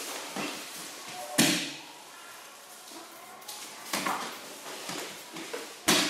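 Bodies dropping and rolling onto a padded grappling mat: two sharp thuds, about a second and a half in and again near the end, with lighter knocks and shuffles between.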